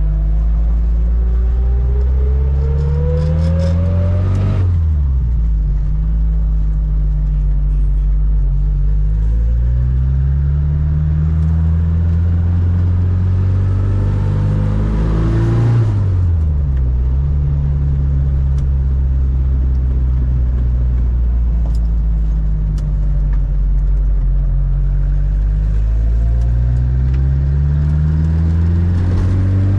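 Fiat 600 with a swapped-in 1.6-litre engine accelerating hard. The engine note climbs steadily in each gear and drops sharply at two upshifts, about five seconds and sixteen seconds in.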